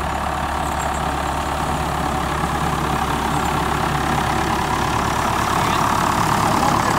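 1971 David Brown 990 tractor engine running steadily while pulling a Woods rotary cutter (bush hog) through tall grass, getting a little louder over the last couple of seconds as the tractor comes close.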